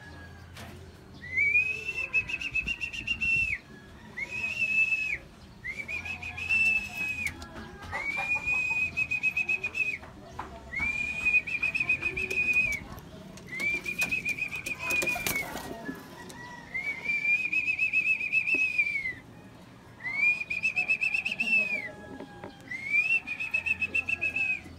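A pea whistle is blown in nine trilling blasts, each one to two seconds long, with short gaps between them. It is the kind of call a pigeon fancier uses to bring the birds in at training and feeding time. A short burst of clicks comes about halfway through.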